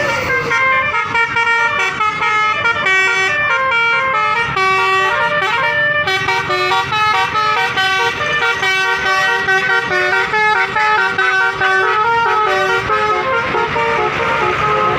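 Basuri telolet musical horn on a bus playing a fast tune, its brassy horn tones stepping from note to note several times a second.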